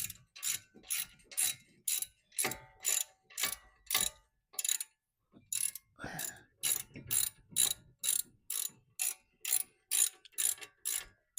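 Hand ratchet wrench clicking in repeated back-and-forth strokes, about two a second, as the brake caliper bracket bolts are run in by hand. There is a brief pause about five seconds in.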